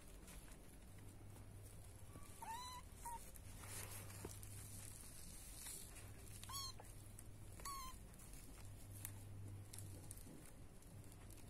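A one-month-old black kitten mewing three times, short high squeaky mews that rise and then level off, the first about two and a half seconds in and two more close together a few seconds later.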